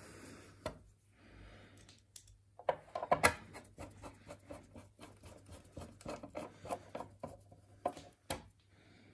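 Hand screwdriver turning screws into the sheet-metal top cover of an HP 6299A bench power supply: a run of small clicks and scrapes of the bit in the screw heads, with a few sharper clicks about three seconds in and near the end.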